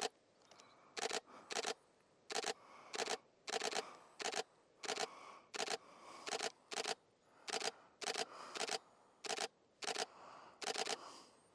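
Canon 90D DSLR shutter firing single shots over and over, about twenty short mechanical clicks at roughly two a second.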